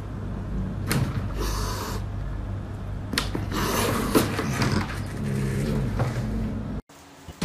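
Two cats scuffling against a desktop monitor: a few light knocks and rubbing sounds over a steady low room rumble.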